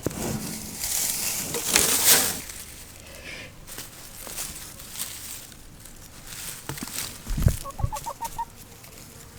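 Domestic hens clucking in a coop, with a quick run of short clucks near the end, which the keeper takes for a hen's egg-laying call. Rustling noise and a thump come from handling in the coop.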